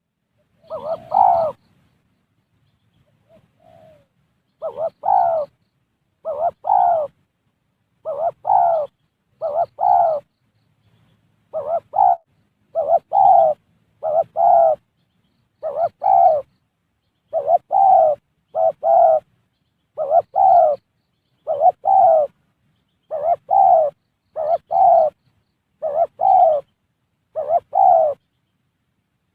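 Spotted dove cooing: short, two-part coos repeated steadily about every one and a half seconds, after a pause of a few seconds following the first call.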